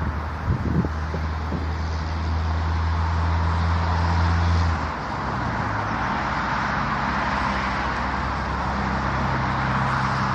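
A motor vehicle's engine running with a steady low hum over road noise; the hum shifts to a higher pitch about halfway through. A few short knocks come about half a second in.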